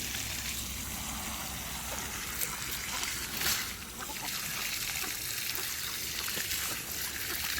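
Water running steadily from a hose, with a couple of brief louder splashes about two and a half and three and a half seconds in.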